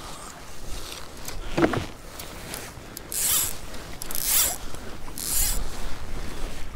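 Fly line being stripped in by hand on a five-weight fly rod: three short rasps about a second apart as the line is pulled through the rod guides, with wind rumbling on the microphone.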